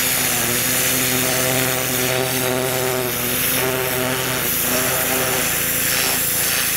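Gas-powered 3000 psi pressure washer running steadily, its small engine droning under load while the water jet hisses against a raccoon hide on a fleshing beam.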